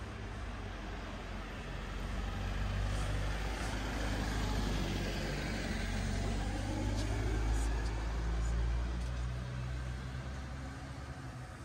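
A motor vehicle's engine running in the street, a low hum that grows louder about two seconds in and fades toward the end.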